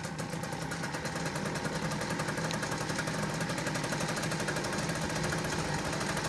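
A small 7.5 horsepower outboard motor running steadily in a water test tank just after being pull-started, its rapid, even firing building slightly over the first couple of seconds and then holding steady.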